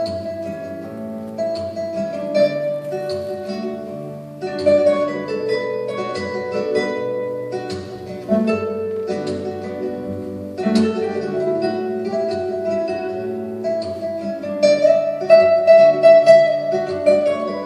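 Instrumental music with plucked string notes, picked out one after another over sustained tones, getting louder near the end.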